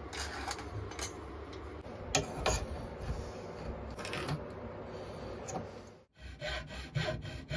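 A hand tool scraping on wood, with irregular rubbing and a few sharp knocks. After a brief pause about six seconds in, it changes to fast, even back-and-forth strokes, about five a second, like rasping or sawing.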